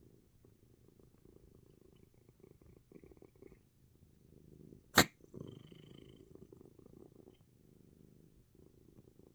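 Domestic cat purring steadily, close to the microphone, with one sharp, loud click about halfway through.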